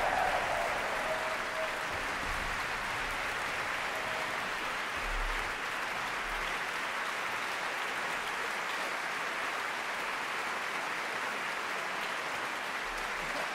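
Large concert hall audience applauding steadily.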